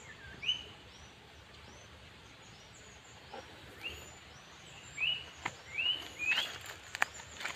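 Small birds chirping outdoors: short, quickly rising chirps repeat several times, coming more often in the second half, over a steady thin high twittering. A few sharp clicks sound near the end.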